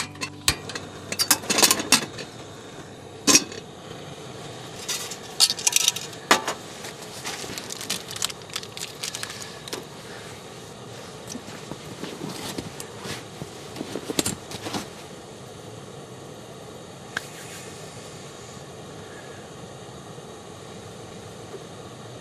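Metal clinks, knocks and clatter as a gas canister stove, a kettle and a steel mug are handled and set down on a steel tray, in an irregular run over the first fifteen seconds, then only a steady background hiss.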